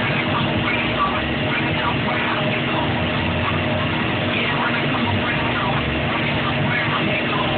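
Vehicle engine running steadily while driving along a road at a constant speed, with road and wind noise.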